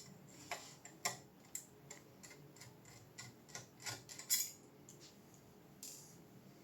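Irregular light clicks and metallic taps of small tools and parts being handled while an RTX 4090 graphics card is taken apart, about a dozen in all, scattered unevenly.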